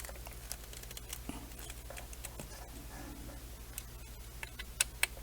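Light scattered clicks and taps of small screws, a hex driver and carbon fibre frame parts being handled, with two sharper clicks near the end, over a faint steady low hum.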